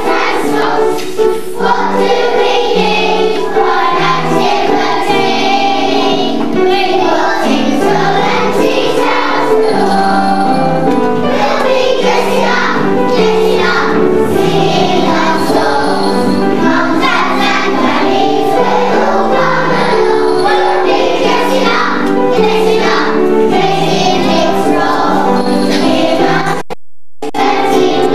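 A children's choir singing a song over a musical accompaniment. The sound cuts out completely for a moment about a second and a half before the end.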